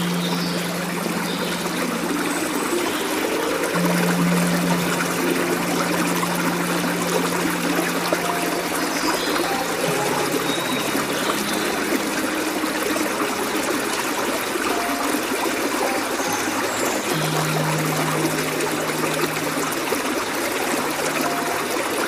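Steady running water, a stream trickling and splashing, mixed with soft background music of long held low notes that change every few seconds.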